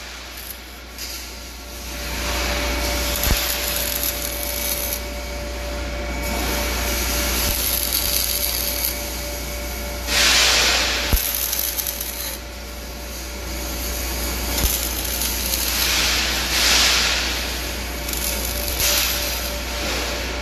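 Arc welding on steel: the arc hisses and crackles in long stretches, with a short pause near the start and another about halfway, over a steady hum.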